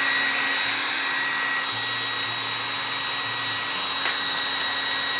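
Hand-held blow dryer running, a steady rush of air with a high, even whine from its motor.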